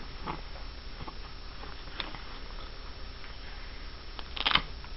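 Quiet room with a steady low hum and a few soft clicks, then a short rattling burst about four and a half seconds in, the loudest moment.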